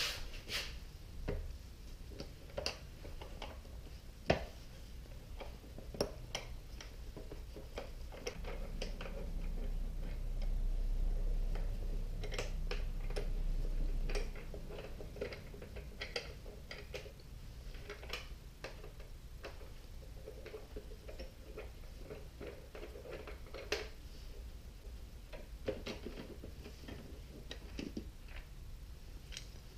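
Irregular light clicks and taps of gloved hands working at a motorcycle's fuel tank filler cap, with a low rumble for a few seconds around the middle.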